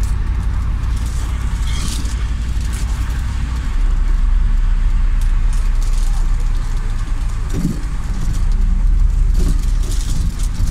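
City bus driving, heard from inside the cabin: a steady low engine and road rumble that grows louder about four seconds in as the bus pulls on. A few light rattles of loose fittings come through now and then.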